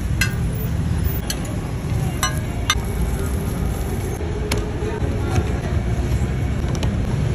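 Steady low street-traffic rumble, with a few sharp clicks and taps of the metal spatula and paddle working a roti on a flat griddle. Near the end comes a knife strike on a cutting board.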